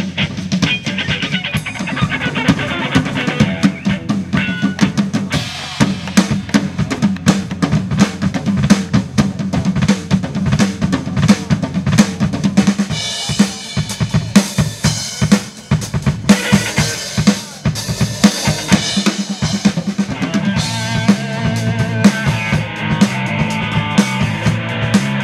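Live rock band playing: a drum kit beats out a steady rhythm of kick, snare and cymbals under a three-string bass guitar and two electric guitars.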